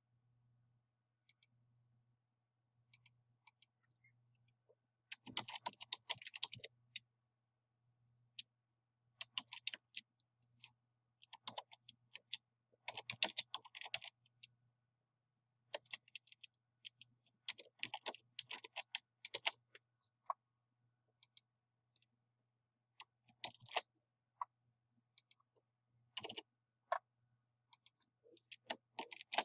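Computer keyboard typing in short bursts with pauses between, and a few single clicks, over a faint steady low hum.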